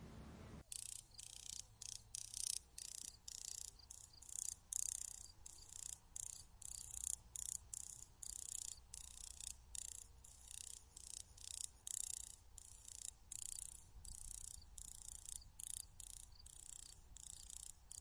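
Insects chirping: an unbroken run of short, high, buzzy chirps, about three a second, uneven in loudness. It starts under a second in and stops abruptly at the end.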